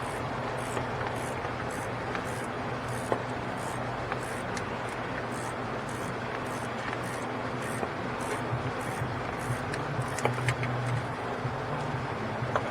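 Steady hum and rush of running shop fans, with a few faint metallic clicks from a long wrench turning the serpentine belt tensioner bolt loose.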